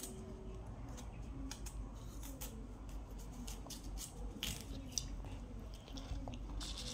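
Faint small clicks and wet smacks of a baby monkey and a toddler eating mandarin orange segments, over a low steady room hum.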